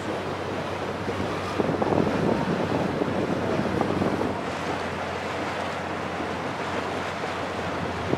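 Wind buffeting the microphone over the rush of lake water from a moving boat, with a boat engine's steady low hum underneath; the rush swells louder about two seconds in.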